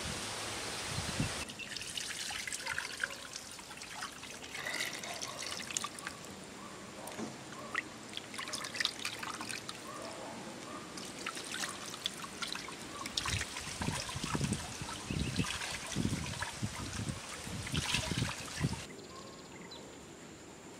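Water splashing, trickling and dripping as a whole raw chicken is washed by hand in a basin of water.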